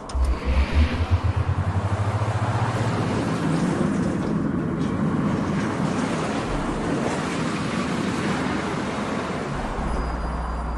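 A vehicle pulling away: a low pulsing engine note rises in pitch over the first couple of seconds, then gives way to a steady rushing noise.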